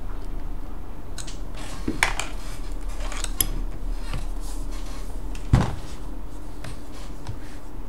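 Small hard clicks and knocks of laptop parts and tools being handled, loudest about two seconds in and again about five and a half seconds in, over a steady low hum.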